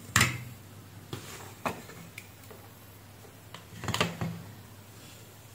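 Four light clicks and taps of handling at a circuit-board repair bench, from multimeter probes and fingers on the board. The first, just after the start, is the loudest; another comes about four seconds in.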